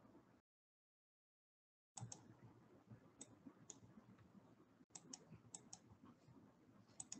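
Near-silent room tone with about ten faint, scattered clicks from the lecturer's computer. The sound drops out completely for about a second and a half near the start.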